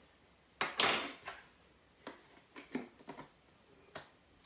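Kitchen dishes and a teaspoon clattering on a countertop as coffee is measured out: a loud clatter just under a second in, then a few lighter knocks and clinks.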